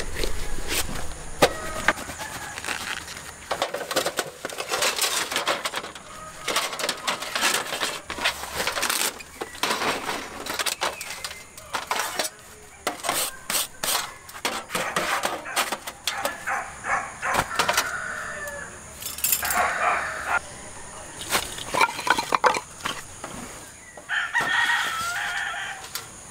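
Roosters crowing, with a couple of longer calls late on, over a busy run of clicks and knocks.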